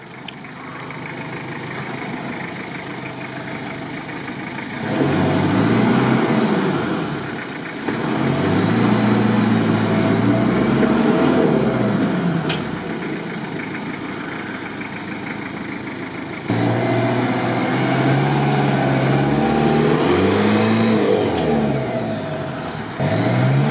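Toyota 4x4's engine revving under load in several long pushes, its pitch rising and falling each time. The truck is crossed up with a rear wheel hanging in the air, and without a locking differential the wheels lose traction.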